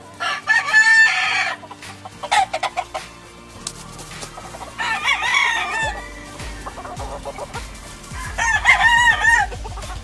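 Game roosters crowing three times, each crow about a second long, with short clucks in between.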